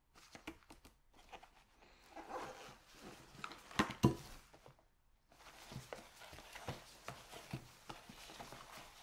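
Gloved hands handling and turning a cardboard box of frozen baguettes on a ceramic plate: rustling and scraping of the cardboard, with two sharp knocks about four seconds in.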